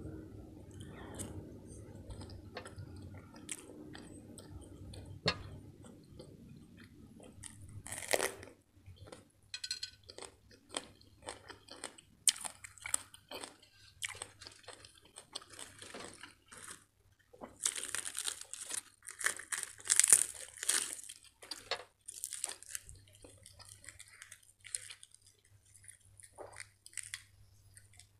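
Close-miked eating: a person chewing butter chicken and crunching crisp iceberg lettuce, heard as a run of short wet clicks, smacks and crunches. The crunching is loudest about two-thirds of the way through.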